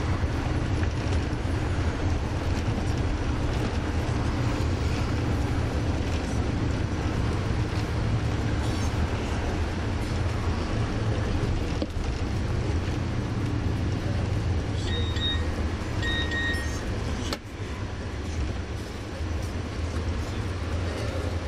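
Steady engine and road rumble heard inside a moving tour coach. Late on there are a couple of short high beeps, and just after them the noise dips suddenly for a moment.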